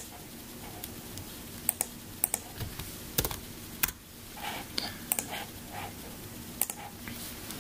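Computer mouse and keyboard clicks: about a dozen sharp clicks, several in quick pairs, scattered over a low steady hum.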